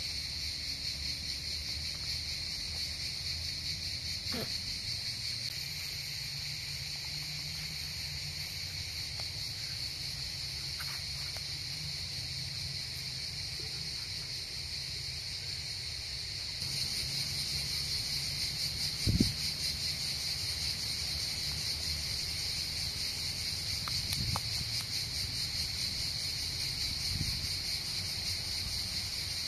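Steady high-pitched insect chorus, a fine rapid chirring, growing louder a little past halfway. A low rumble runs underneath, and a single sharp knock comes about two-thirds of the way through.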